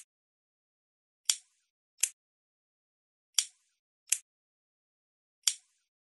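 Lighter clicking in pairs about every two seconds: a click with a short ringing tail, then a shorter, sharper click about 0.7 s later. There is no flame hiss between the clicks.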